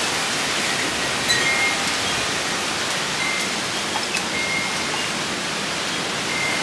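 Steady rushing noise of a windy thunderstorm, with faint short high chirps now and then.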